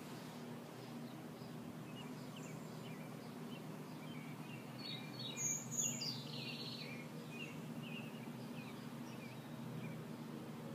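Small birds chirping here and there over a steady low hum, with a louder cluster of calls about five seconds in.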